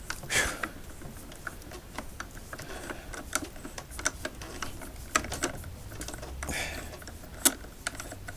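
Irregular clicks and taps of plastic and metal parts being handled and forced apart while an electric unicycle's casing is taken off, with a couple of heavy breaths from the effort.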